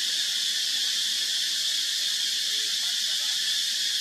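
Steady insect chorus in the forest trees: a dense, unbroken high-pitched buzzing hiss.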